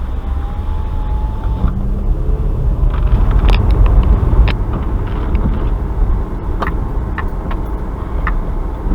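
Car driving, with a steady low rumble of road and engine noise and a few short ticks scattered through.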